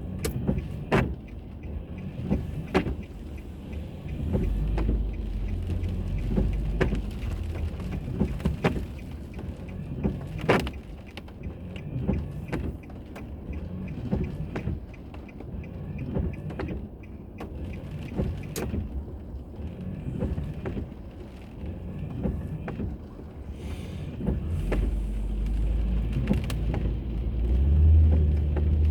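Car on the move heard through an onboard dash camera: low road and engine rumble with scattered sharp clicks and knocks. The rumble swells briefly and grows louder again near the end.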